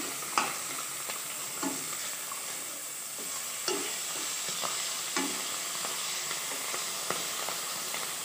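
Fish heads shallow-frying in a little hot oil in a kadai, a steady sizzle. A flat spatula scrapes and taps against the pan about eight times as the pieces are turned over to fry the other side.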